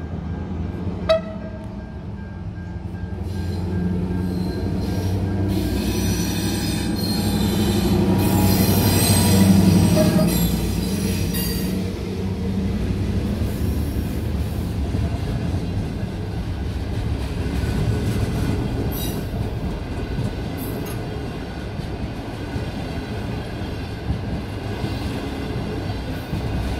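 Diesel-hauled passenger train passing close by: the rumble builds to its loudest about eight to ten seconds in, with a high wheel squeal, then the coaches roll past with a steady rumble of wheels on the rails. A single sharp click comes about a second in.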